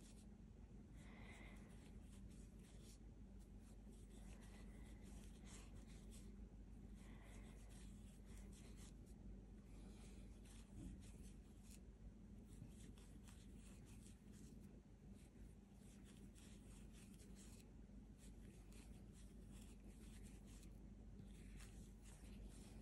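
Near silence: a faint low room hum, with soft scratchy rustling of acrylic yarn being drawn through stitches by a metal crochet hook.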